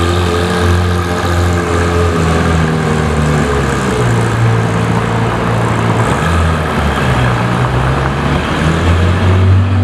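Porsche 911 GT3 RS Weissach's naturally aspirated flat-six engine running at low revs as the car pulls away slowly: a loud, steady low drone that shifts in pitch a few times.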